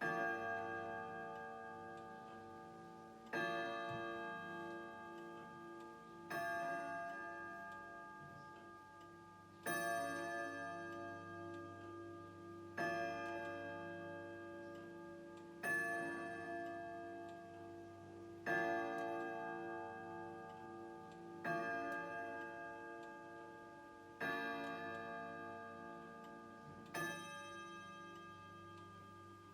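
Grandfather clock striking the hour of twelve: ten evenly spaced ringing strikes, about three seconds apart, each one fading slowly before the next. The clock's ticking sounds faintly underneath.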